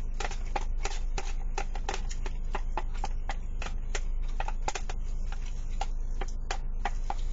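Wooden chopsticks clicking and scraping against a plastic food container in quick, irregular taps, about three or four a second, as the last of the food is scraped out.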